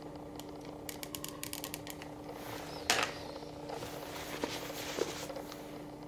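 Hard plastic parts being handled: a run of quick small clicks, then rustling with one sharp knock about three seconds in and a few lighter taps, over a steady low electrical hum.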